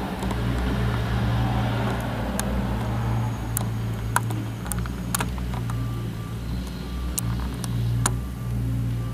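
Mustang 2054 skid steer's engine running steadily. It is busier and rougher for the first two seconds, then eases back. Scattered sharp clanks sound through it as the machine works on its over-the-tire tracks.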